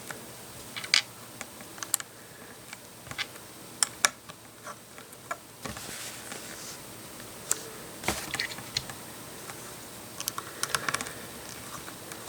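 Small plastic LEGO bricks and plates clicking as they are handled and pressed together, irregular sharp clicks a second or so apart with a small cluster near the end.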